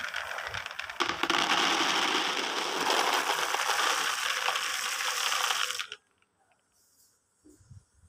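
Raw shelled peanuts poured from one plastic bowl into another: a dense, steady rattle of many nuts hitting plastic. It grows louder about a second in and stops abruptly about six seconds in.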